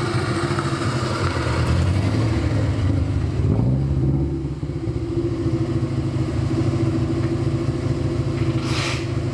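Subaru Impreza GC8's flat-four engine running as the car is driven slowly into the garage, with a brief rise in revs a few seconds in.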